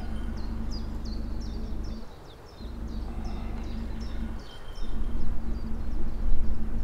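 A bird calling in a quick series of short, high, falling chirps, about three a second, over a steady low hum that breaks off briefly twice.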